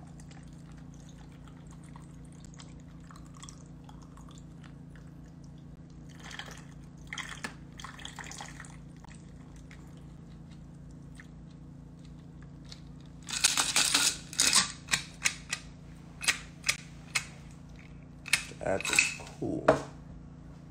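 Cocktail being strained from a metal shaker onto ice in a tall glass, a quiet pour over a steady low hum. In the second half, a run of loud, sharp clicks and knocks.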